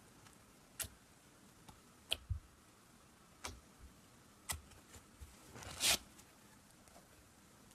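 Slime being poked with a fingertip, giving several sharp wet clicks and pops, then a longer, louder crackling squish about six seconds in as the slime is squeezed.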